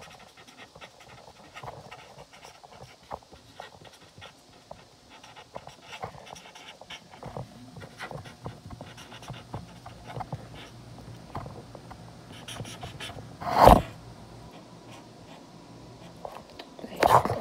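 Felt-tip marker scratching over paper in many short strokes as a note is written. A loud bump about three-quarters of the way in and another near the end, from the phone being handled.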